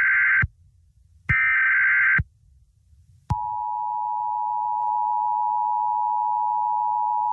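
Emergency Alert System broadcast tones breaking into the audio. A shrill, warbling burst of digital data tones ends about half a second in, and a second burst follows about a second later. From about three seconds in comes one long, steady attention tone.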